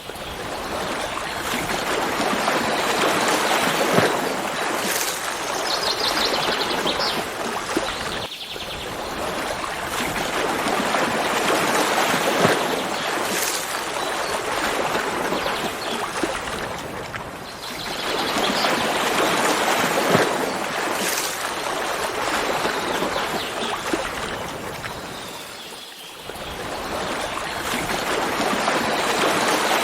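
Running stream water rushing steadily, swelling and easing roughly every eight or nine seconds, with a brief high bird trill about six seconds in.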